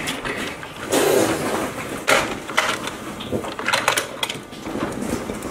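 Hard plastic toy car-hauler truck being handled: a scatter of clicks and knocks as its rear ramp is let down and a die-cast toy car is taken out.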